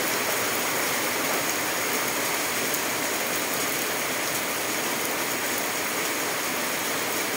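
Heavy rain falling steadily on foliage and ground: an even hiss with no breaks.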